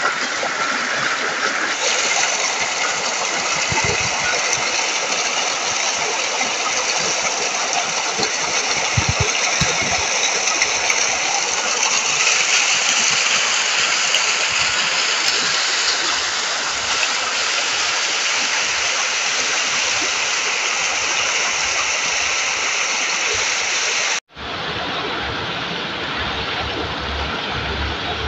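River water rushing and tumbling over rocks in a steady, even hiss. About four seconds before the end it cuts to a softer, duller sound of shallow water being stirred by hands.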